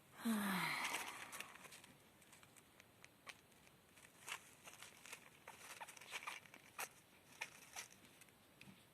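A short falling vocal sound at the very start, then a hamster rustling in its cage bedding: faint, scattered small crinkles and clicks over several seconds.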